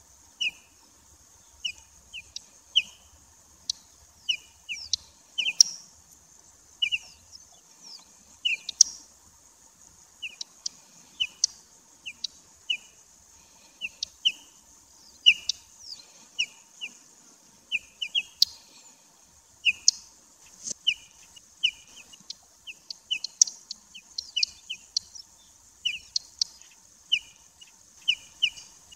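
Whinchat calling over and over: a short whistled note with sharp clicking ticks, roughly once or twice a second.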